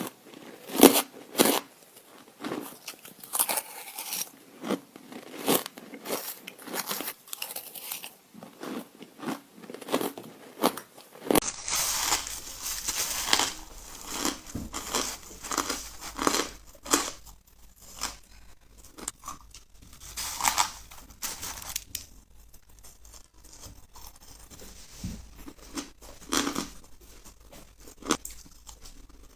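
Ice being bitten and chewed: a run of sharp, irregular crunches and cracks as the pieces break between the teeth, with short pauses between bites.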